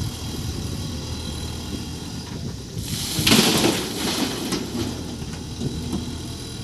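JCB 3CX backhoe loader's diesel engine running steadily under load, with a loud burst of rushing, rattling noise about three seconds in that lasts about a second.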